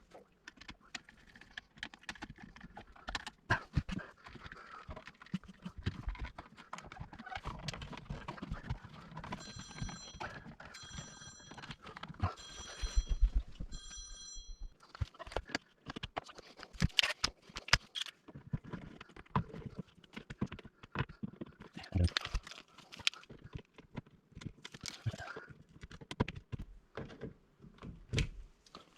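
Scattered clicks, taps and knocks of hands working with tools and electrical wire, with four short electronic beeps in a row, just over a second apart, about ten seconds in.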